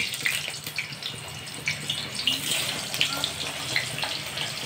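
Large pieces of paneer sizzling in hot oil in a kadhai: a steady hiss with many small pops and crackles.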